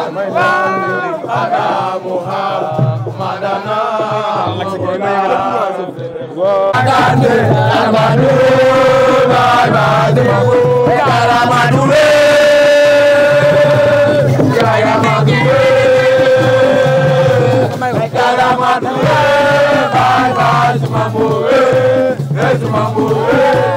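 A crowd of young people chanting and singing together. About six seconds in it turns louder and fuller over a steady beat, with long held notes.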